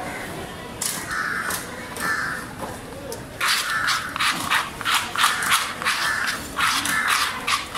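Crows cawing again and again, a few separate calls at first, then a dense run of overlapping caws from about three and a half seconds in.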